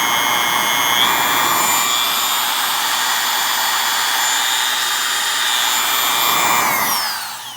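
Makita variable-speed router motor running at high speed with a steady whine. Its pitch steps up twice at the start as the speed dial is turned up, to setting 3. Near the end it is switched off and the whine falls as it spins down.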